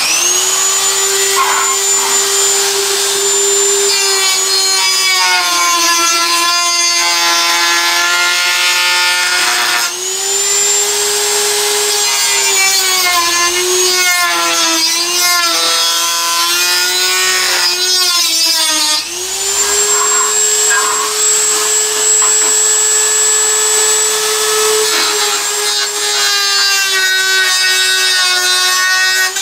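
Dremel rotary tool with a cut-off wheel cutting into plastic model bridge parts. Its motor whines at a high steady pitch that sags and wavers whenever the wheel bites into the work, and it runs back up to full speed about 10 and 19 seconds in, when the wheel is lifted off.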